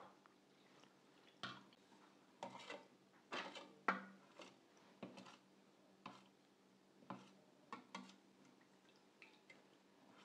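Faint, irregular knocks and scrapes, about one a second, of a steel ladle mashing and stirring thick pearl millet porridge with water and curd in a stainless steel bowl.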